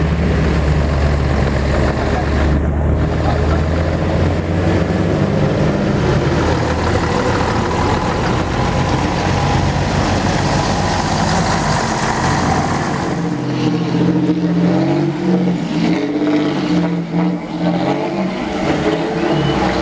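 A bus engine running and revving under load, with people's voices mixed in over the last several seconds.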